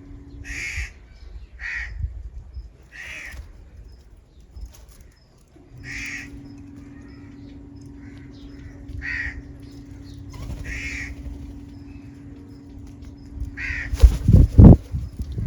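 House crow cawing repeatedly, one harsh call every second or two. A steady low hum runs under the calls from partway through, and a few loud thumps come near the end.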